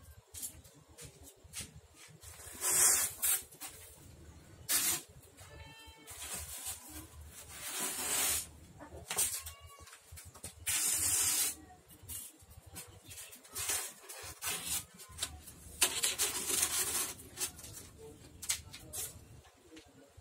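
Styrofoam sheets being scored with a utility knife and scraped against each other and the wooden frame: about half a dozen loud, scratchy, hissing strokes, each a second or less.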